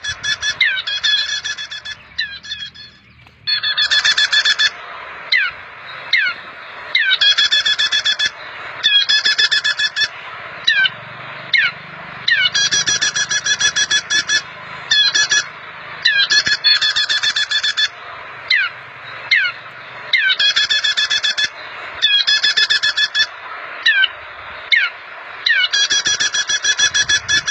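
Prinias (prenjak) calling loudly in a repeated pattern: rapid trilled bursts about a second long, recurring every couple of seconds, with single short down-slurred chips in between.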